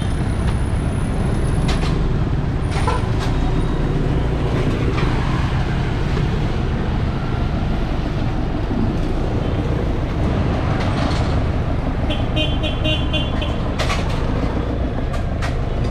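Street traffic noise with a steady low rumble, and a short run of high beeps about twelve seconds in.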